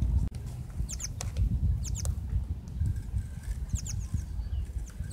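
Wind buffeting the microphone in a loud, uneven low rumble, with short high squeaky chirps about once a second.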